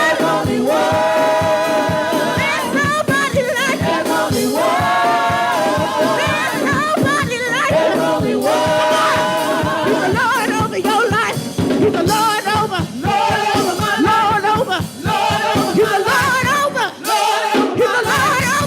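Church praise team singing a gospel praise song over a steady beat, several voices holding long notes together.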